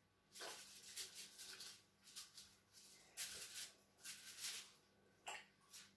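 Rubber-gloved hands working dye into wet yarn on plastic: a run of short, irregular rustles.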